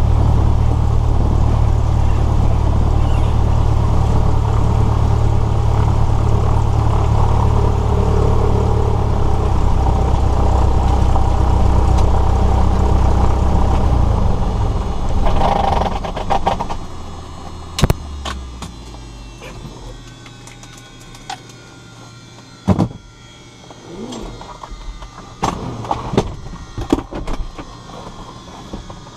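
Cessna 172S's fuel-injected Lycoming four-cylinder engine idling, heard from inside the cabin, then shut down with the mixture pulled to idle cutoff about fifteen seconds in, running down and stopping within a couple of seconds. After that come scattered sharp clicks and knocks from the cabin.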